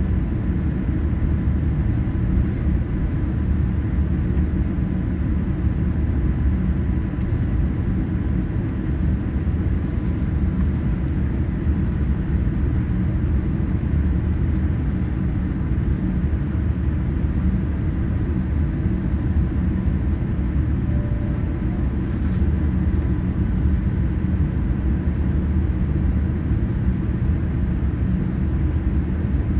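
Cabin noise inside a Boeing 787-9 taxiing after landing: a steady low rumble, with a faint steady whine above it.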